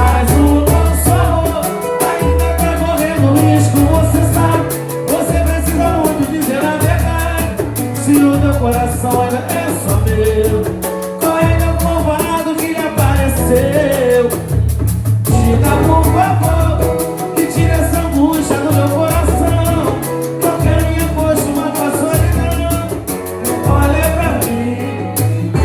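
Latin-style music with singing over a bass line and busy, steady percussion.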